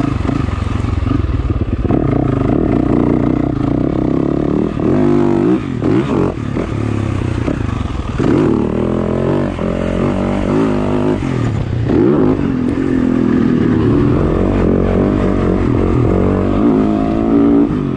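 Motocross dirt bike engine at full race pace, its pitch climbing and dropping over and over as the rider opens the throttle, shifts and backs off into turns, with brief dips about five and eight seconds in.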